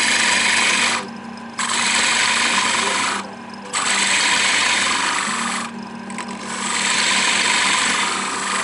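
Lathe running with a steady hum while a bolt held in a collet is cut down in repeated passes: four stretches of loud rasping hiss, each lasting one to two seconds, with short breaks between them.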